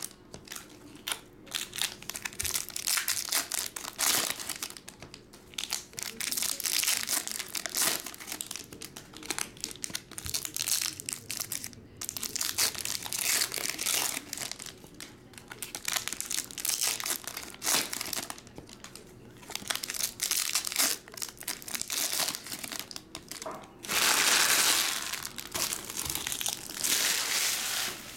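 Foil wrappers of baseball card packs crinkling and tearing as they are opened by hand. The crackling comes in irregular bursts, with a longer, louder stretch near the end.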